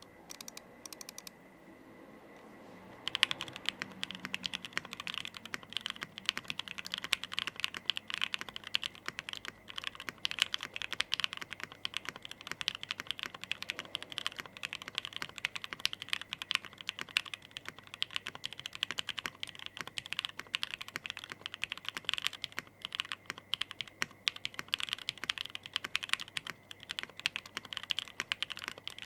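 Custom mechanical keyboard typed on steadily from about three seconds in, after a few isolated key presses: a Gok 7V with a polycarbonate plate, plate foam and tape-modded PCB, lubed JWK Alpaca V2 linear switches and GMK Nautilus keycaps, giving a soft typing sound.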